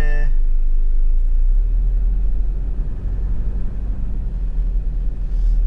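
Camper van driving on a main road: a steady low rumble of engine and tyre noise.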